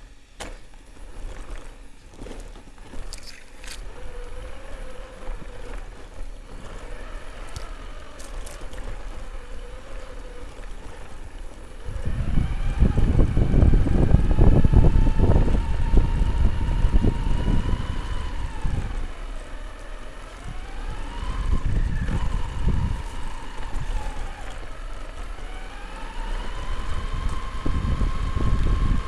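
Upgraded electric motor of a Himoto RC car whining as it drives over a dirt track. The whine is faint and steady at first. About twelve seconds in it climbs in pitch with a heavy rumble of wind and rough ground, dips twice, and climbs again near the end.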